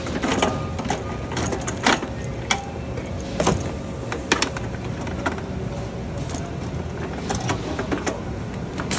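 Hoses and their fittings being handled and pulled out of an aluminium diamond-plate tool case: irregular knocks, clicks and rattles against the metal, over a steady background hum.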